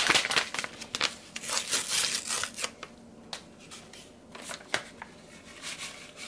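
Paper taco seasoning packet being torn open and crinkled, a dense rustling over the first two and a half seconds, followed by a few scattered light clicks as the seasoning is poured over browned ground beef in a frying pan.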